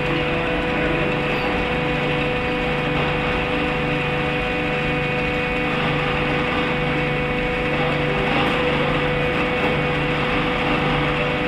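Coldbox core shooter machine running: a steady mechanical hum with a constant mid-pitched tone and a low drone that swells and fades every second or two, without distinct knocks.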